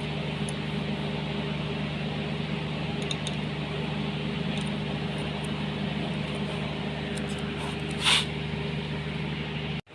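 A steady machine hum, with a brief hiss about eight seconds in. The sound cuts off sharply near the end.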